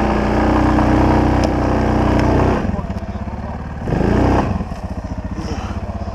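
ATV engine throttled up and pulling under load for about two and a half seconds, then dropping back to idle, with a second short burst of throttle a little past the middle before it settles to a steady idle. It is carrying a buck on its front rack over rough ground.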